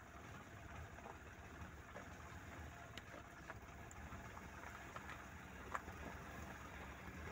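Maruti 800's small three-cylinder petrol engine running faintly at low revs as the car drives slowly along a rough track, with a few scattered sharp clicks, the loudest about three-quarters of the way through.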